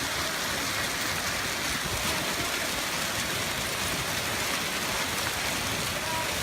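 Hailstorm: hail and rain pelting down on surfaces in a dense, steady clatter of countless small impacts.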